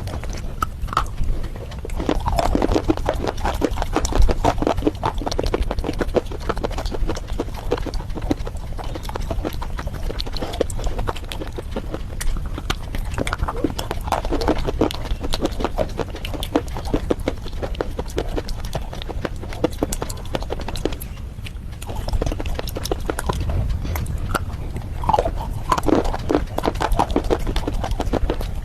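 Chewing and crunching of red slate bars with clay paste: a dense run of crackly, gritty clicks, with a few louder stretches of crunching.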